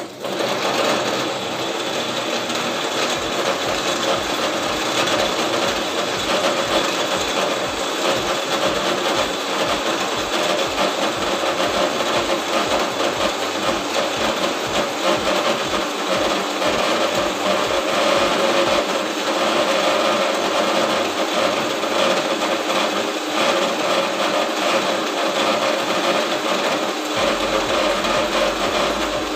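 Electric mixer grinder running at full speed, switched on at once, blending apple, dates, almonds, yogurt and chia seeds into a smoothie in its small steel jar. It gives a loud, steady motor whine and churning.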